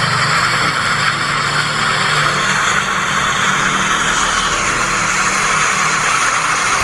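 Jeep Cherokee on steel cage wheels instead of tyres, its engine running steadily under a loud, even rushing noise.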